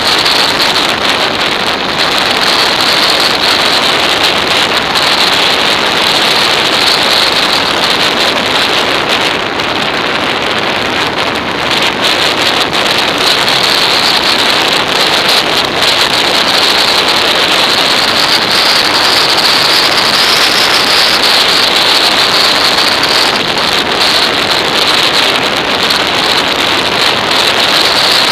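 Steady rush of wind buffeting an action camera's microphone on a motorcycle moving at road speed, with road noise mixed in and no distinct engine note. It eases slightly about a third of the way in, then builds again.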